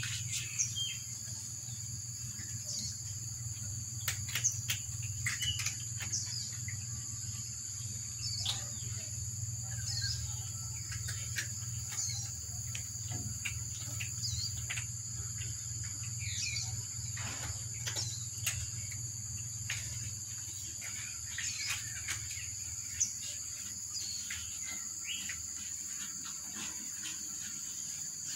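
Steady high-pitched insect drone, with short falling chirps and scattered crunching clicks from cats chewing dry kibble. A low hum underneath fades out about two-thirds of the way through.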